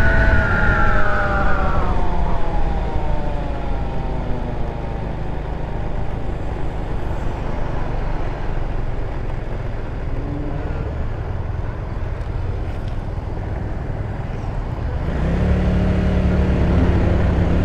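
GY6 150cc scooter engine under way: its whine drops in pitch over a couple of seconds as the scooter slows, then a low steady rumble with road and wind noise, and about fifteen seconds in the engine note rises and strengthens again as it picks up speed.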